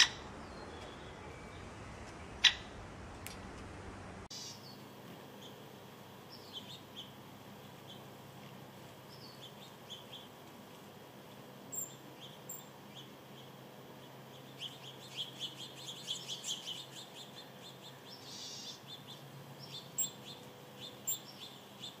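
Steady hiss with one sharp click about two and a half seconds in. After a cut about four seconds in, small birds chirping: short high chirps, scattered at first and coming thick and fast for a few seconds past the middle.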